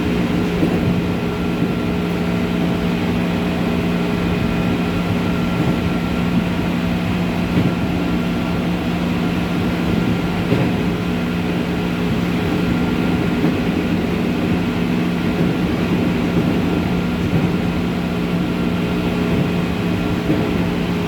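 JR 205 series electric train heard from inside a motor car, running steadily with a constant traction-motor whine over wheel and rail rumble, and a few louder knocks from the track.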